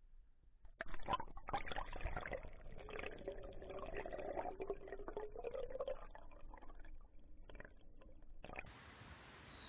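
Trout-stream water gurgling and bubbling around a camera dipped at and under the surface, starting about a second in. Near the end it gives way to a steady hiss.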